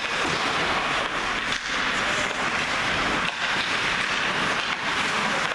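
Ice hockey rink sound during play: a steady rushing hiss, with skates scraping across the ice.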